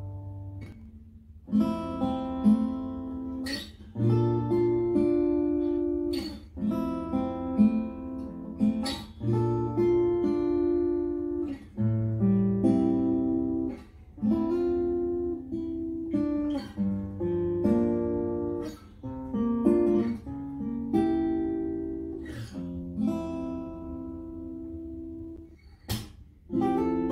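Gopher Wood G520ce cutaway acoustic guitar being played: chords struck with sharp attacks and left to ring, a new chord about every second, with short pauses twice along the way.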